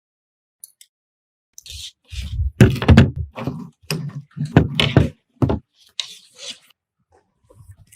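A quick run of about ten knocks and thuds over some four seconds, starting about a second and a half in, then dying away.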